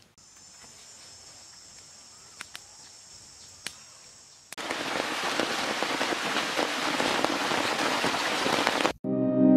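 Faint steady high insect hum with a few clicks. About halfway in, a loud dense crackling of a wood fire under grilling beef ribs takes over, with smoke being fanned with leaves.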